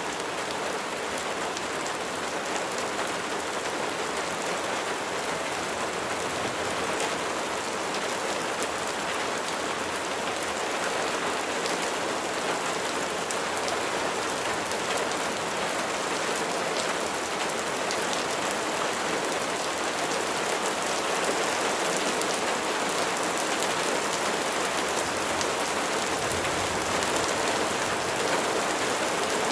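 Steady rain falling, with many individual drops ticking against a surface.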